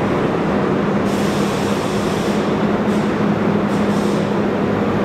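R32 subway train standing at the platform, its onboard equipment giving a steady low hum under a continuous rushing noise.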